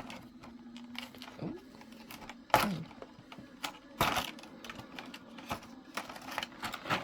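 Hot Wheels toy car packaging being handled and opened: an irregular run of clicks, taps and rustles, with sharper snaps about two and a half and four seconds in.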